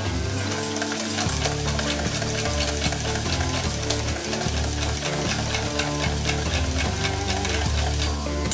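Wire whisk beating barbecue sauce and eggs in a stainless steel bowl, clicking and scraping quickly against the metal, while onions and peppers sizzle in a frying pan.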